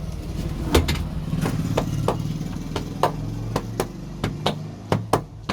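Sharp taps of a percussive head massage, about a dozen at an uneven pace of roughly two a second, over the steady hum of an idling vehicle engine.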